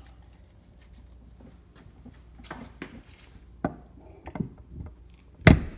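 A Tesla mobile connector's NEMA 14-50 plug being pushed into a wall receptacle: a few light clicks and knocks of the plastic plug and prongs against the outlet and cover plate, then one loud knock near the end as it goes in.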